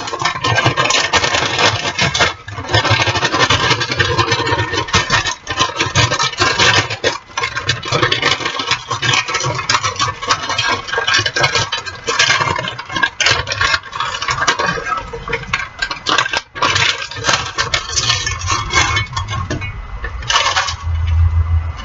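Frozen breaded chicken pieces rattling and scraping in a skillet as they are pushed and stirred around the pan, with irregular clicks and knocks throughout.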